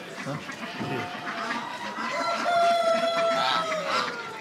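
Rooster crowing among many penned fowl. One long, held crow runs from about halfway through and falls off in pitch at its end, over clucking and calling from the other birds.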